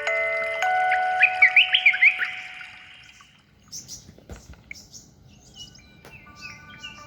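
Vivo V7+ alarm tone played through the phone: ringing chime notes with loud, quick bird-like chirps over them, dying away about three seconds in and leaving fainter, high twittering chirps.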